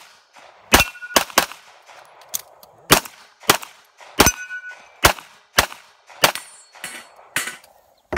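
Rapid pistol fire, about a dozen shots at uneven spacing: some in quick pairs, others singly, each trailing off in a short echo. A few shots are followed by a brief metallic ring, typical of steel targets being hit.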